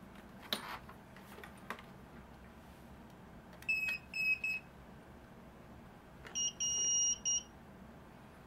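Electronic beeping from a hoverboard's buzzer: three short beeps a little before the middle, then a second run of higher-pitched beeps with one longer tone about two thirds through. A light knock about half a second in as the board is handled.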